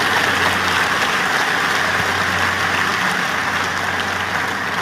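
Audience applauding in a large hall, a steady crackle of clapping that slowly fades toward the end.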